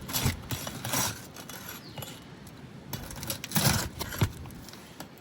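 A few short scrapes, rustles and knocks of tools being handled and shifted on asphalt shingles, the loudest cluster about three and a half seconds in.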